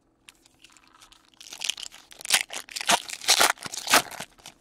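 A foil trading-card pack wrapper being torn open and crinkled by hand: a dense run of sharp crackling rips that starts about a second and a half in and is loudest in the last two seconds.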